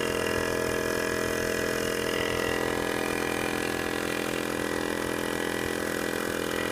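Portable single-piston car tyre air compressor running steadily as it pumps air into a flat tyre.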